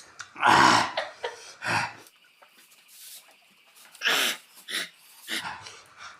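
A person making short breathy vocal bursts, coughs and gasps, about five of them with pauses between, as he reacts to the heat of Naga king chilli.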